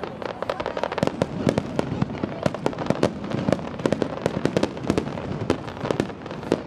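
Aerial fireworks display: many sharp bangs and pops in quick, irregular succession as several shells burst at once, over a continuous rumble.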